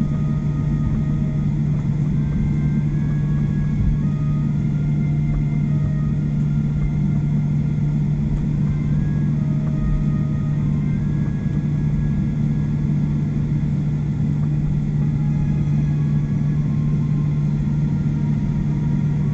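Steady low rumble inside a Boeing 737-800 cabin while the jet taxis after landing, with a constant deep hum throughout.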